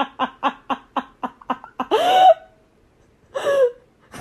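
High-pitched giggling laughter: a quick run of short 'ha-ha' pulses that slows down, then two longer drawn-out squeals about a second apart.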